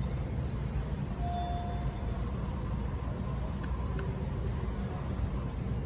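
Steady low background rumble, even throughout, with a faint click about four seconds in.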